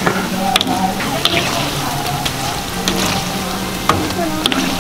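Twisted doughnuts deep-frying in a wok of hot oil, the oil bubbling and sizzling steadily as a mesh strainer stirs through them. A few sharp clicks stand out.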